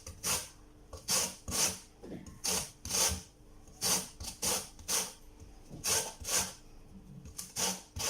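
Lemon peel being grated on a hand grater: a run of short rasping strokes, about one or two a second and often in pairs, taking off only the yellow zest.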